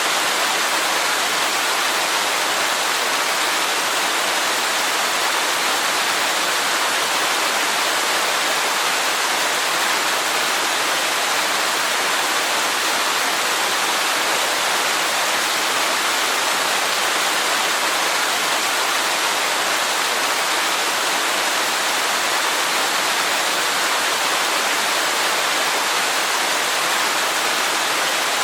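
Waterfall rushing, a steady even hiss with little low rumble.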